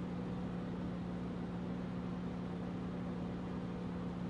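Steady machine hum with one strong low held tone and a faint hiss, even throughout, with no separate knocks or clicks.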